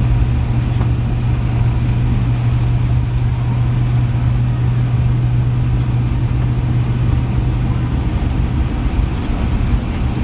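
Jet airliner cabin noise: a steady low drone of the engines and rushing air, heard from inside the cabin.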